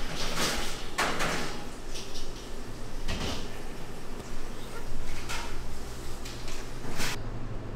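Food-preparation handling noises in a restaurant kitchen: about five short bursts, spaced a second or two apart, over a steady low hum of kitchen equipment.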